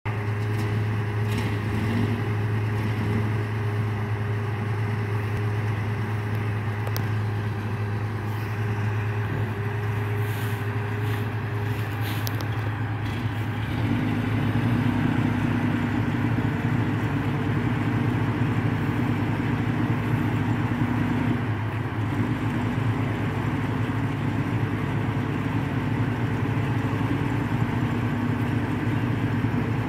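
Ward LaFrance series 2 heavy wrecker's engine running steadily at low speed; about halfway through it grows a little louder and fuller.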